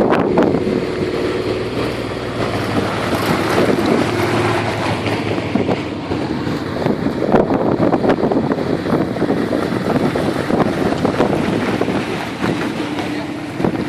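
Off-road 4x4 vehicle's engine running hard, mixed with heavy wind noise on the microphone.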